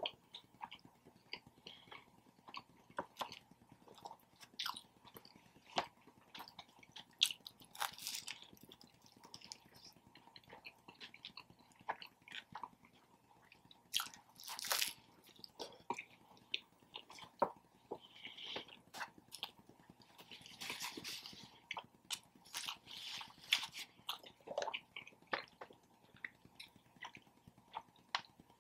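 Chewing and biting into a Subway footlong sub sandwich: crunching bites and wet mouth clicks in an irregular stream, with a few longer crunchy bursts.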